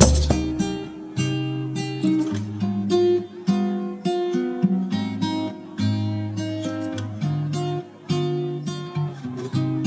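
Background music: acoustic guitar plucking and strumming a run of notes and chords.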